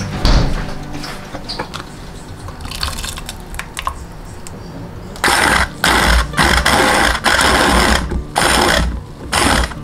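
Hand-held immersion (stick) blender whirring in about six short pulses through the second half, puréeing corn into milk for a soup. A few light clinks come before it.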